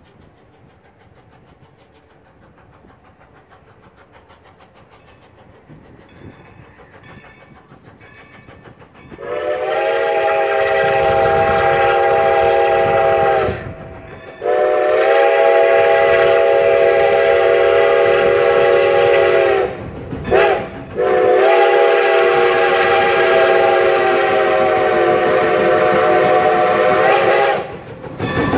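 Steam chime whistle of Strasburg Rail Road No. 90, a 2-10-0 steam locomotive, blowing the grade-crossing signal as a chord of several notes: long, long, short, long, the last blast ending just as the engine reaches the crossing. Before it, for about nine seconds, only the faint distant rumble of the approaching train.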